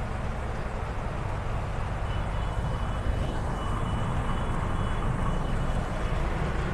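Steady low outdoor rumble, with a faint thin high tone coming and going.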